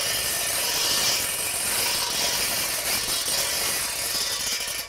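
Machinery handling a drum of paint runs with a steady rattling clatter and hiss, cutting off suddenly near the end.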